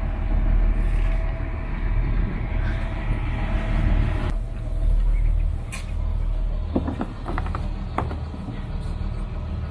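Twin Caterpillar diesel engines of a Mikelson 43 sportfisher idling, a steady low rumble. In the second half a fender creaks and knocks a few times as it is pulled up against the hull and rail.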